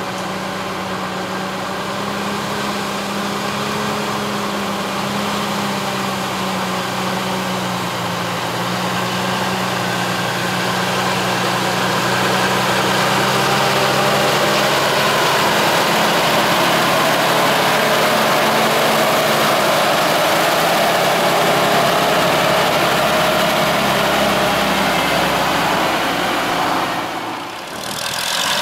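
1970 Brockway 361 dump truck's diesel engine running at low speed as the truck rolls slowly toward and past, growing louder as it nears. Near the end the sound dips briefly, then the engine is heard again.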